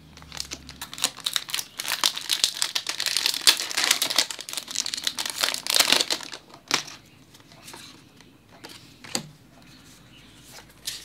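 Foil wrapper of a Pokémon booster pack crinkling and tearing as it is opened, about five seconds of dense crackling, then a few soft clicks as the cards are handled.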